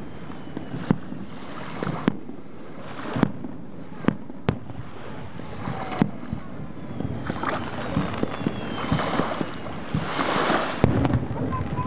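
Fireworks shells bursting in the distance, a string of sharp booms about a second apart. Under them, the steady wash of small waves on the shore, swelling into a louder rush near the end.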